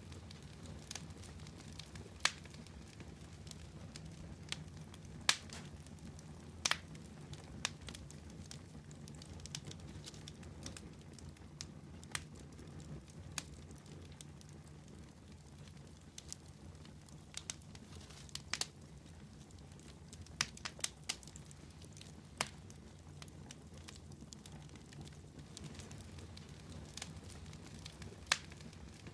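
Wood campfire burning, with sharp, irregular crackles and pops every second or so over a steady low rumble.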